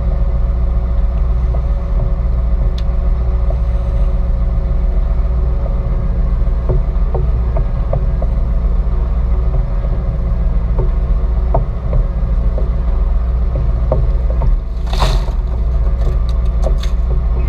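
Deadrise workboat's engine running steadily at low speed, a constant low drone. Scattered light clicks sound throughout, and there is a brief louder rush of noise about fifteen seconds in.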